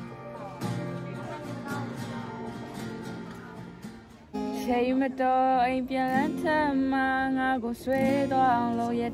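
Music: an acoustic guitar strumming chords, joined about four seconds in by a voice singing a melody, which is louder than the guitar.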